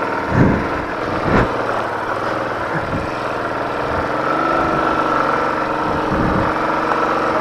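Royal Enfield motorcycle's single-cylinder engine running under load as the bike climbs a rough, slippery track, with a few dull thumps from the bike jolting over rocks.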